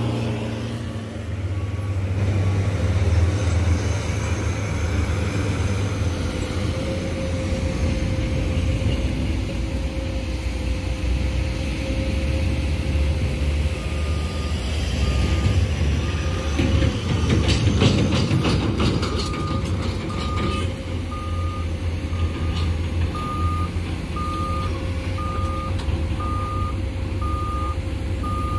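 Heavy diesel engines of loaded coal dump trucks and mining machines running with a steady low rumble. From about halfway a reversing alarm beeps about once a second, and a few seconds of clattering come a little past the middle.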